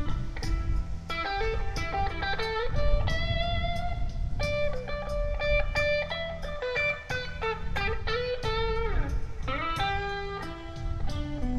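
Blues electric guitar lead: sustained single notes with bends and a sliding fall in pitch near the end, over low bass notes and a steady beat.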